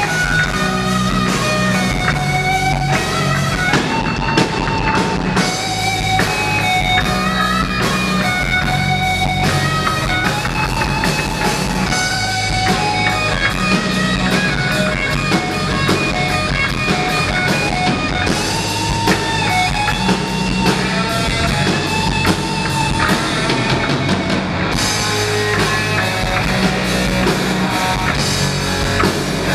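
Live rock band playing: electric guitar lines over electric bass and a drum kit.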